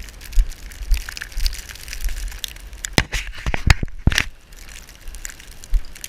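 Snow crunching and crackling, with a few sharper clicks and snaps about three to four seconds in.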